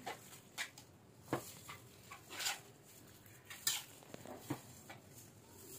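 A metal spoon giving faint, scattered clicks and knocks against a bowl while raw chicken pieces are stirred, about five small knocks spread across a few seconds.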